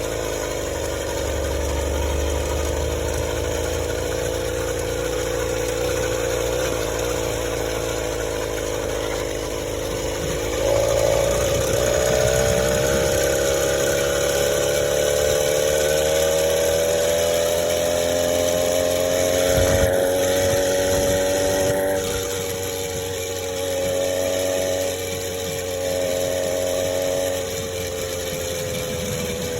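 Small single-cylinder motorbike engine running steadily; about ten seconds in it picks up speed and its pitch slowly climbs, then it eases off at about 22 seconds and rises and falls a few times near the end.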